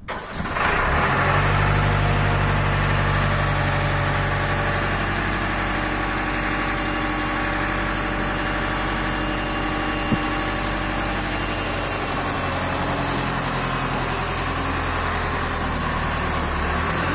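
The diesel engine of a 1978 Liebherr 901 wheeled excavator starts within the first second and then runs steadily.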